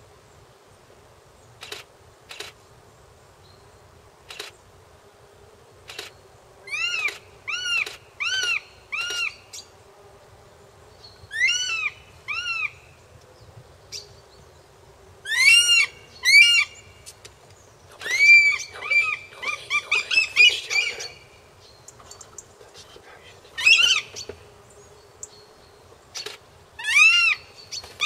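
A juvenile goshawk and a buzzard in a fight, with loud, sharp calls given in quick series of four or five arched notes, repeated several times. About two-thirds of the way through comes a burst of wing-flapping and scuffling among the calls.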